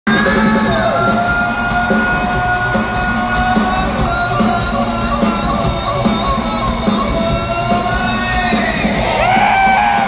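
Live concert music heard from the audience in a large arena: a singer's amplified voice holding long notes and sliding in pitch near the end, over the band, with fans yelling and shouting along.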